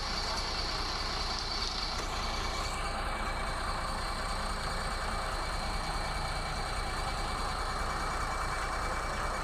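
A motor or engine running steadily, a constant mechanical noise with a faint whine in it.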